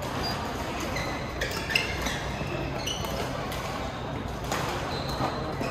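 Badminton rallies in a large hall: a few sharp racket strikes on the shuttlecock, the sharpest about two seconds in, with short shoe squeaks on the court floor, over a steady hum and distant voices echoing in the hall.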